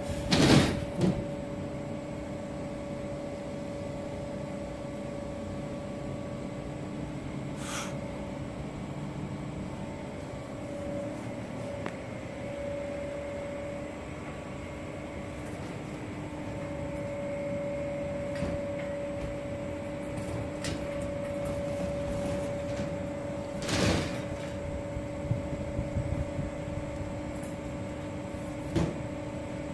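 Scattered sharp knocks and bangs, the loudest two close together at the very start and others about a third of the way in and near the end, over a steady machine hum. The knocks are the unexplained noises the uploader reports at his workplace, alongside a moving roof.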